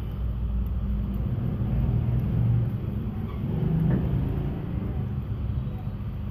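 Steady low background rumble that swells and eases slightly.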